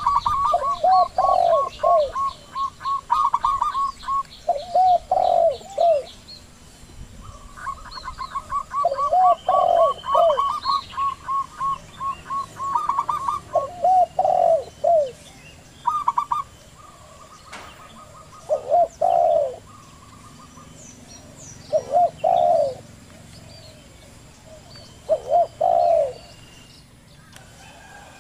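Zebra doves and spotted doves cooing. A fast stuttering run of higher coos comes at the start and again in the middle. Lower two- or three-note coos repeat every few seconds throughout.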